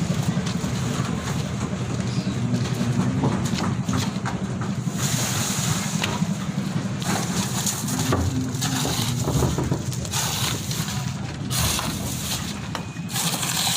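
A machine engine running steadily with a fast, throbbing rumble, while bursts of rough, hissing noise come and go over it from about five seconds in.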